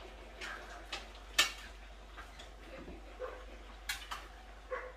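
A handful of separate sharp clicks and knocks, the sharpest about a second and a half in and two close together near four seconds.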